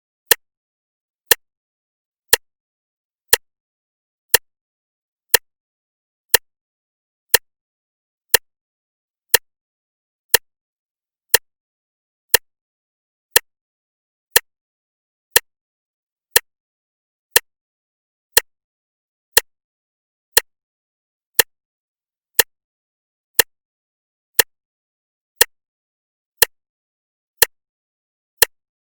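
A clock ticking steadily once a second, each tick a short sharp click, with complete silence between ticks.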